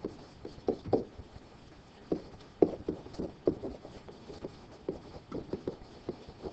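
Stylus writing on an interactive whiteboard: an irregular string of short taps and strokes as letters are written.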